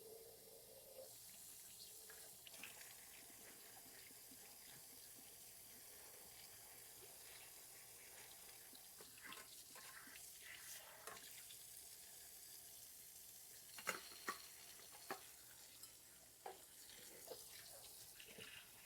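Faint sounds of hummingbird feeders being washed in a sink: a soft hiss of water with a few light knocks in the second half as the parts are handled.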